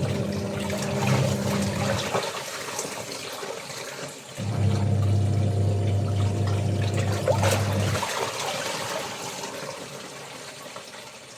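Water sloshing and pouring as laundry is washed, with a low mechanical hum that runs at first, stops after about two seconds, and comes back for a few more seconds near the middle.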